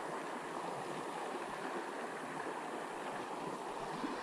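Small mountain creek running over shallow riffles and rocks: a steady rush of flowing water.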